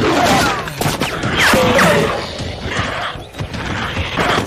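Action-film creature sound effects: giant crocodiles growling and shrieking in short gliding cries, mixed with sudden hits and crashes of the fight.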